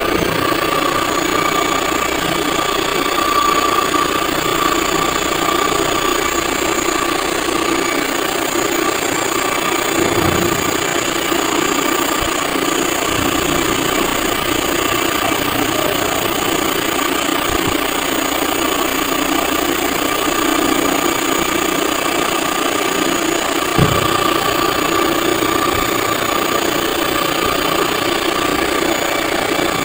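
Car alternator converted to a 36-volt brushless (BLDC) motor, running steadily on its controller: an even whirring hum with a steady high tone over it. A few brief knocks break in partway through.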